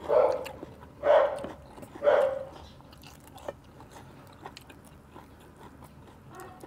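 A dog barks three times, about a second apart, over soft chewing and mouth clicks from people eating fresh herbs. After the barks only the faint chewing goes on.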